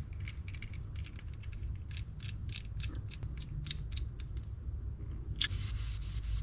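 Small metal parts of a spinning reel clicking and tapping as they are handled and fitted during reassembly, then a steady hiss starts about five and a half seconds in.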